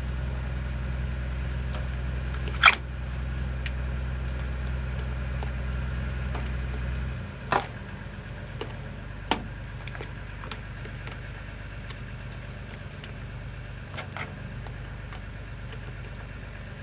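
Scattered sharp clicks and knocks of hand tools and washing-machine parts being handled while a part is screwed on, over a steady low mechanical hum that drops away about seven seconds in.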